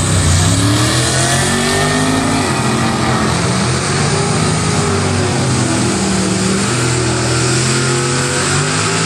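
Two drag cars, a Valiant with a 360 cid Mopar V8 and a Corvette, launching side by side and accelerating hard down the strip at full throttle. The engine pitch climbs and drops back at each gear change.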